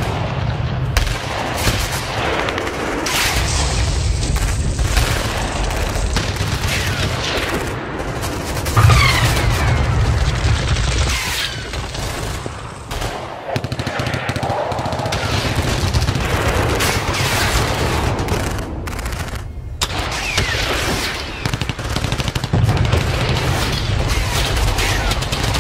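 Airsoft guns firing in rapid bursts, many sharp cracks, over a steady low rumble.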